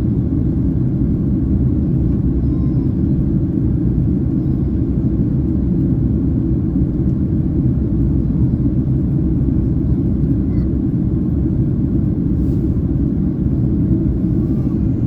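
Steady low rumble of engine and airflow noise inside the cabin of a Boeing 767-300ER airliner in flight.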